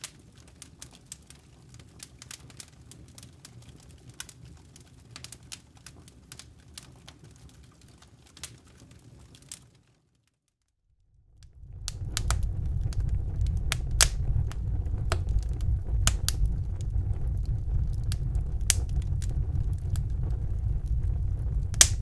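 Wood fire in a fireplace crackling: sharp, irregular pops and snaps of burning logs over the low sound of the flames. It is faint at first, drops out for about a second near the middle, then comes back much louder with a deep low rumble.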